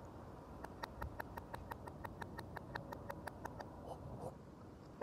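A kitchen knife blade tapping quickly on a frozen water balloon, light ringing ticks about six a second for some three seconds, played backwards.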